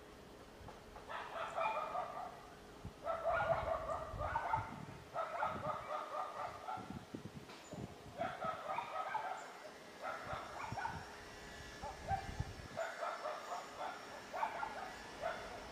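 A dog barking in repeated bouts, each about a second long with short pauses between.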